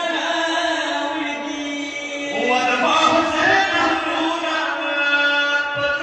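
A man's voice chanting verse through a microphone and PA over a steady held drone note. The chanting grows louder about two and a half seconds in.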